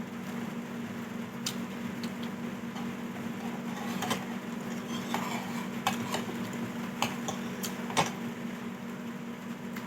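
Spoon clinking against a bowl in a handful of separate sharp clicks while eating soup, over a steady low hum.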